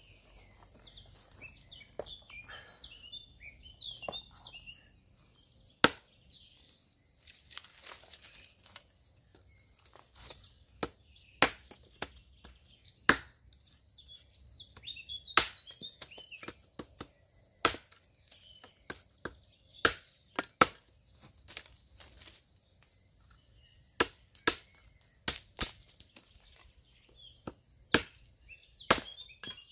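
Tetrao Panus hatchet chopping small branches against a log, about a dozen sharp, irregularly spaced chops starting about six seconds in. A steady high insect trill runs underneath.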